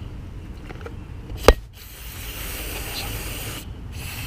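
A single sharp knock about a second and a half in, then a steady hiss of aerosol carburetor cleaner sprayed through its straw into the throttle body, breaking off shortly before the end.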